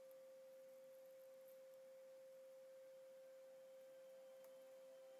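Near silence with a faint steady tone at one pitch.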